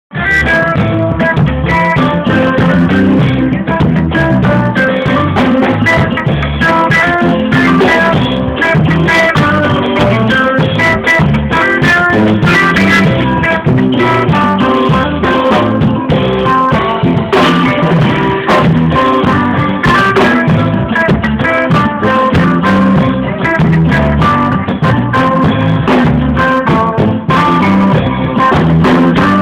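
Live church band music: electronic organ or keyboard with a drum kit playing a steady beat, in a loud, poor-quality recording with a muffled, narrow sound.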